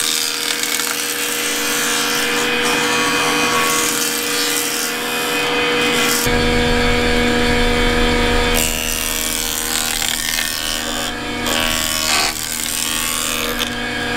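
Old belt-driven Craftsman jointer running, its three-blade cutterhead planing the edge of a treated wood board fed across it: a steady machine whine under the rasp of the cut. The cutting sound changes a few times as the board moves over the cutterhead, with a low rumble joining about six seconds in.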